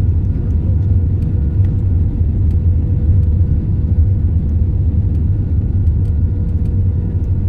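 Steady low rumble of a Jetstar Airbus A320-family jet airliner in flight or on the runway, heard from inside the cabin, with a faint steady hum over it.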